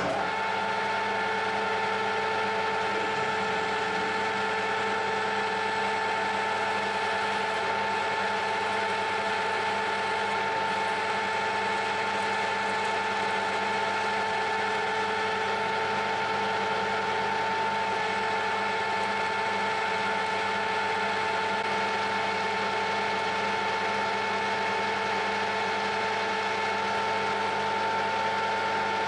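A metalworking machine tool starting up and running steadily under power, its motor and gearing giving a constant whine. It comes on abruptly at the start and holds the same pitch throughout.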